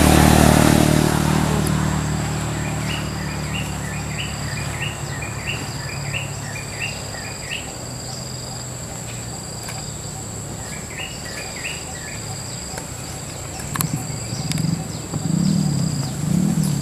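Rural outdoor ambience: a steady high insect drone with a bird calling in a quick run of chirps, then a shorter run a few seconds later. A low engine hum fades out in the first couple of seconds.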